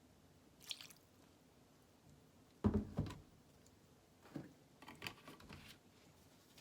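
Soft handling noises: a brief rustle, two dull knocks about two and a half seconds in, then a run of light clicks and rustles.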